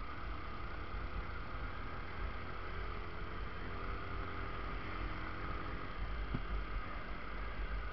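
Yamaha Factor motorcycle riding at a steady pace: its single-cylinder engine is running under a steady low rumble of road and wind noise. There is one short click near the end.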